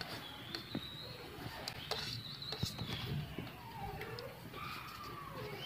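Chopped fresh herbs being scraped off a plate with the fingers into a bowl of mashed meat and lentils: soft taps and rustles, with a few light ticks of the plate.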